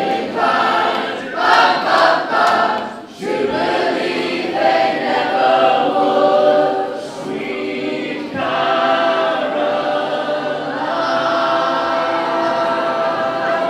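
Large mixed choir of school students and adults singing unaccompanied in harmony: short phrases in the first few seconds, then long held chords that shift to new chords every few seconds.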